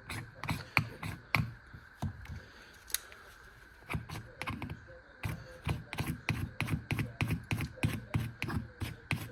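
Folding knife blade cutting into wood: a quick series of short, sharp knocking strokes, a few a second, with a brief pause about three seconds in.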